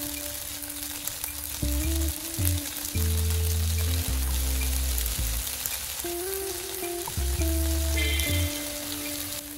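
Black rice noodles and baby broccoli sizzling in a hot oiled pan while sushi vinegar and then tamari are poured in and stirred with a spoon. Under it, background music with a low bass line that steps from note to note.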